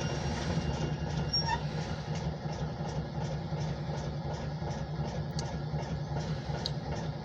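Diesel locomotive engine running steadily as the light engine moves off, with a faint regular ticking about twice a second.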